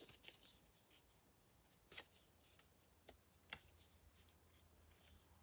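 Near silence, broken by three faint, short clicks and rustles of a paper greeting card being handled.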